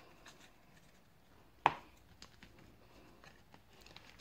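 Hands handling baseball cards and a foil wax pack: faint rustles and light ticks, with one sharp tap about a second and a half in.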